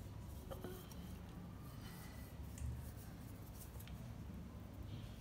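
Faint scratching of a chocolate piece rubbed across a small flat stainless-steel hand grater, with a few light ticks.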